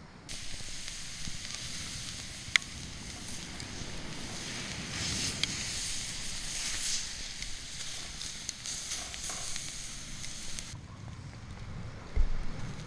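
Sake-lees-marinated marlin (kajiki kasuzuke) sizzling on a grill over a wood fire, a steady hiss with one sharp pop about two and a half seconds in. The sizzle starts and stops abruptly.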